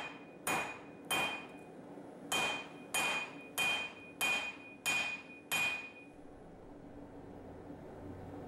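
Hand hammer striking a red-hot steel bar held in tongs on an anvil: nine blows about two every second, with a short pause after the third, each leaving a high ringing note from the anvil. The blows stop about six seconds in.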